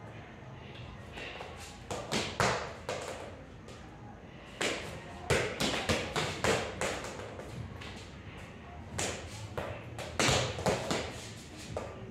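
Soccer ball being juggled with the feet and dropping onto a tiled floor: quick runs of thuds and taps in three bursts, about two, five and ten seconds in.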